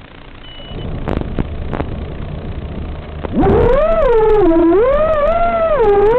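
FPV quadcopter's electric motors heard through its onboard camera microphone. After a low rumble and a few knocks, about three seconds in the motors spool up into a loud whine that rises and falls in pitch with the throttle as the quad lifts off and flies. The sound is thin and muffled, typical of audio carried over an analog video link.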